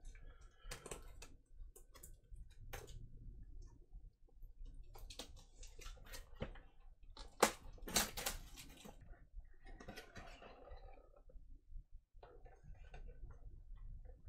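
A cardboard box and its packaging being handled and opened: scattered taps, scrapes and rustles, loudest about eight seconds in.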